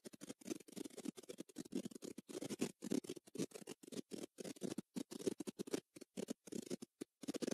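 Faint crackly background noise with no speech, cutting in and out in many quick short fragments.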